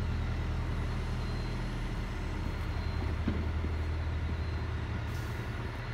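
Bus diesel engine idling: a steady low hum, with a brief faint hiss about five seconds in.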